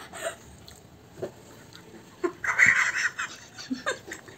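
Short breathy gasps and a loud hissing out-breath from a woman whose mouth is burning from very spicy momos, with laughter near the end.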